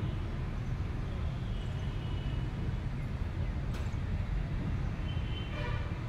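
Steady low outdoor rumble with no clear single source, with a brief click a little before the 4-second mark.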